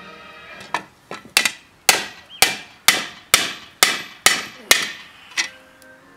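Hand hammer striking a hot steel disc held in tongs over a hollow in a wooden stump, about eleven sharp ringing blows at roughly two a second, dishing the disc into a dome. The blows stop about a second before the end.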